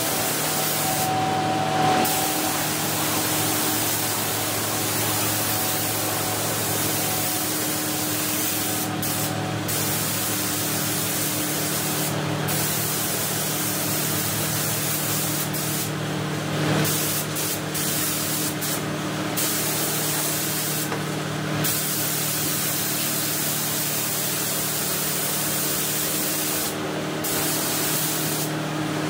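Air spray gun hissing as it lays a colour coat of paint on car body panels, the hiss breaking off briefly several times, over a steady low hum.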